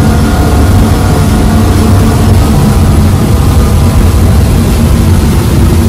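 Twin Suzuki 350 hp V6 outboard engines driving the powerboat at speed: a loud, steady engine drone under the constant rush of water and wind on the hull, heard from inside the wheelhouse.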